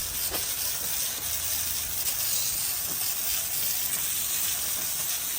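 Water spraying steadily from a hose nozzle onto a freshly sawn white oak slab to wash it, an even hiss.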